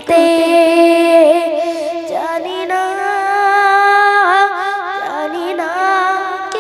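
A boy singing a Bengali Islamic gojol alone, with no instruments, through a handheld microphone. He sings long held notes with wavering ornaments and takes a short break about two seconds in.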